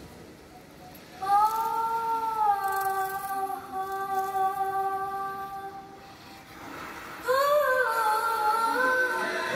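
Show soundtrack: a solo voice sings one long, steady note, gliding into it at the start. About seven seconds in, a louder voice enters with a wavering, ornamented melody.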